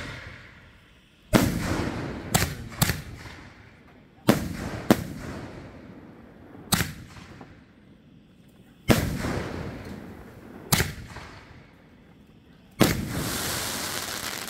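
7-inch canister firework shells launching and bursting overhead: a string of heavy booms every two to three seconds, each trailing off in a long echo, with sharper single reports between them. Near the end a last boom runs straight into a sustained rush of noise.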